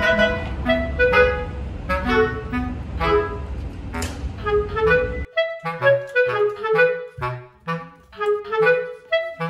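Background music: a light tune of short, bouncy woodwind notes with a steady beat. A low rumble beneath it cuts off suddenly about five seconds in.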